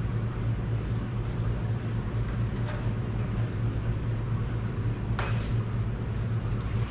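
Two metallic clinks of tools or parts being handled on top of a Farmall Super C engine, a faint one nearly three seconds in and a louder one about five seconds in, over a steady low hum.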